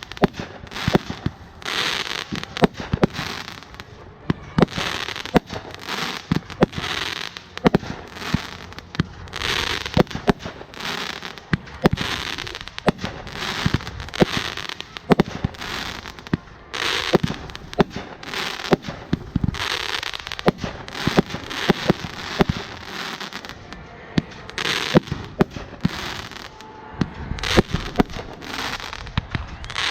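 Fireworks going off: volcano-type ground fountains spraying with surges of hissing crackle, under a dense, irregular run of sharp pops and bangs.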